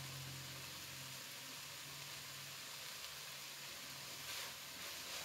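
Keema (minced meat) sizzling faintly in a non-stick wok, over a low steady hum. A wooden spatula stirs and scrapes through the mince about four seconds in.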